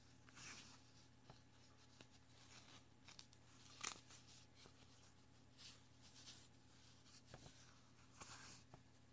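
Near silence: faint rustling and a few soft handling clicks, with one sharper click about four seconds in, over a low steady hum.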